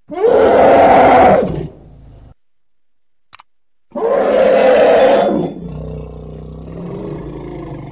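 Elephant calls: two loud, harsh trumpeting calls a few seconds apart, the second trailing off into a quieter, lower-pitched call.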